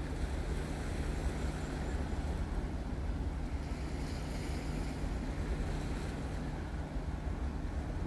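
Steady wind rumbling on the microphone, with a faint low hum underneath and no distinct events.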